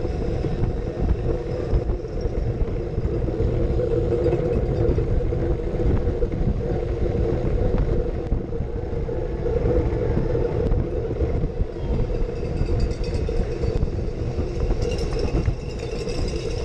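Wind buffeting the microphone of a camera on a folding bike ridden at racing speed, a dense steady rush heaviest in the lows, with a steady hum underneath.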